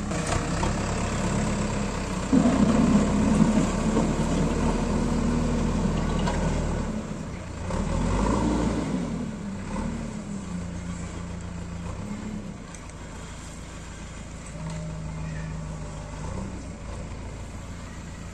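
JCB 3DX backhoe loader's diesel engine working. It revs up loudly about two seconds in, rises and falls again around eight seconds, then settles to a lower, steady running.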